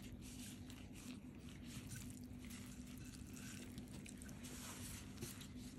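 Faint wet squishing and crackling of oily noodles being pressed and mixed by a hand in a plastic glove, with small irregular clicks, over a faint steady low hum.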